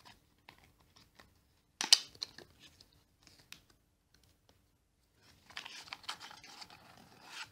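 Cardboard trading-card deck box being opened by hand. There is a sharp rip of cardboard about two seconds in and a few light taps, then a longer scraping rustle near the end as the inner tray of cards slides out of its sleeve.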